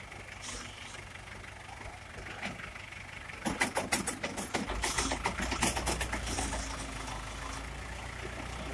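Tractor engine running steadily, its low rumble growing louder about halfway through. A run of sharp clattering knocks falls in the middle, the loudest part.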